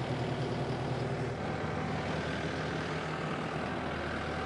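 Kubota M5-091 tractor's diesel engine idling steadily, an even low hum.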